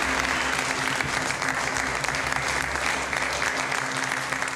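Audience applauding, a dense steady patter of many hands clapping that eases slightly toward the end.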